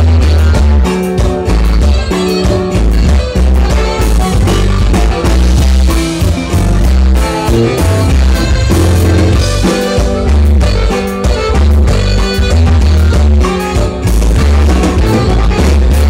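Live norteña band playing a dance song, with a strong pulsing bass line under the melody.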